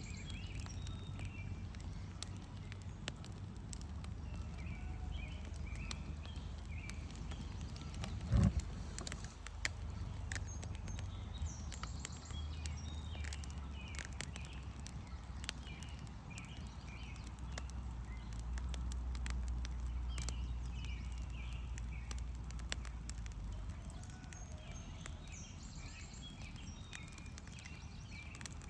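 Campfire crackling with scattered sharp pops, over a steady low rumble, while small birds chirp in short bursts now and then. A single heavy thump about eight seconds in.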